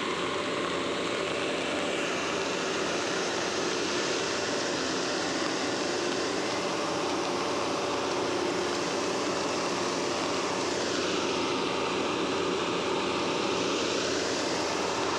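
Heavy rain falling steadily, with a diesel concrete mixer truck engine running underneath.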